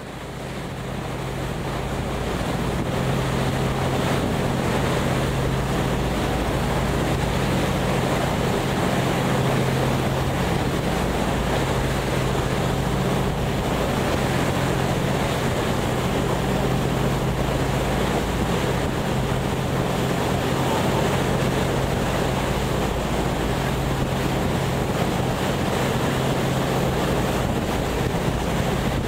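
A tour boat's engine running steadily under way, a constant low hum, with water rushing past the hull and wind on the microphone. It rises in level over the first few seconds.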